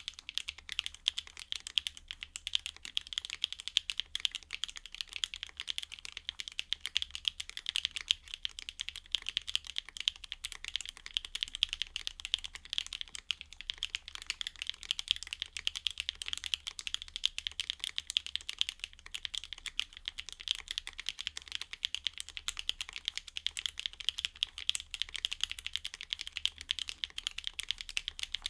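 Continuous fast typing on a Neo Ergo custom mechanical keyboard with MZ Z1 linear switches: a dense, even stream of key clacks.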